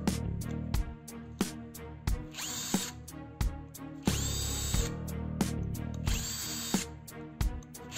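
Electric screwdriver running in several short bursts as it backs out small screws, each burst starting with a rising whine, with clicks of the tool and screws between.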